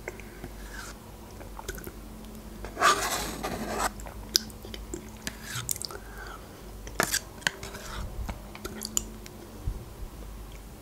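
Close-up eating sounds of spoonfuls of yogurt being taken off a metal spoon: wet mouth and lip smacks with small clicks, and one louder wet sound lasting about a second, about three seconds in.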